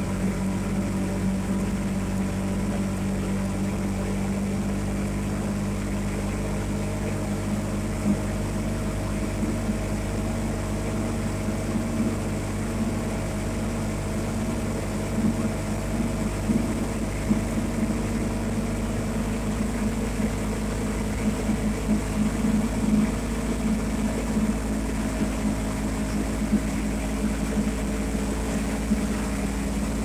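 Side-by-side ATV engine running steadily at road speed, holding one even pitch with a low rumble beneath.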